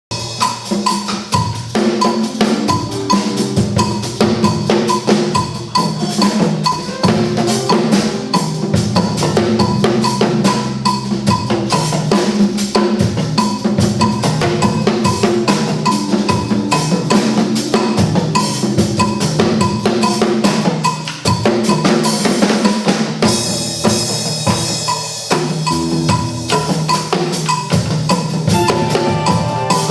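Instrumental music: a fast drum-kit beat with bass drum and snare over a repeating bass line and pitched percussion. The beat briefly thins out and changes about three-quarters of the way through.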